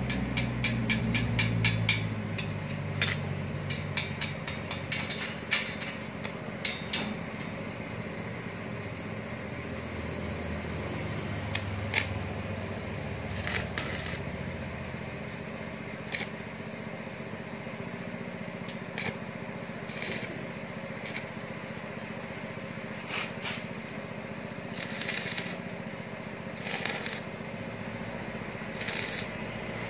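Stick (arc) welding: the electrode arc crackling and spitting as a steel scroll is tacked onto a round steel rack shelf, with a rapid patter of sharp ticks in the first several seconds and scattered snaps later.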